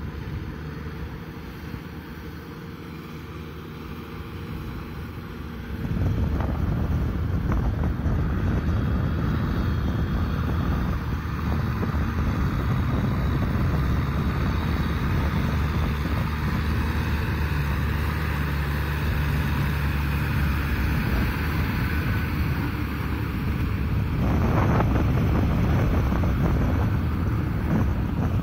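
Kubota M6040SU tractor's diesel engine running steadily under load as it works through mud, with wind buffeting the microphone. The engine becomes suddenly louder and closer about six seconds in.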